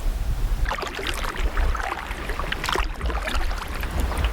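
Kayak paddle dipping and splashing through the water, with irregular drips and spatters from the blades starting about a second in, over a steady low rumble.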